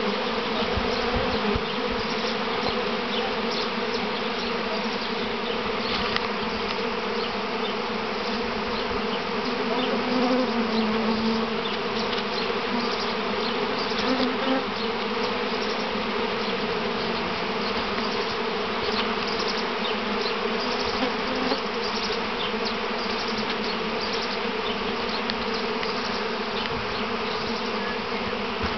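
Honeybee swarm in flight: thousands of bees buzzing in a dense, steady hum, a colony swarming, with a few brief moments where it swells louder.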